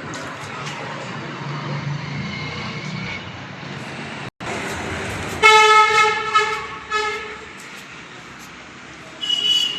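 Vehicle horn honking in several blasts about halfway through, with a short, higher-pitched beep near the end.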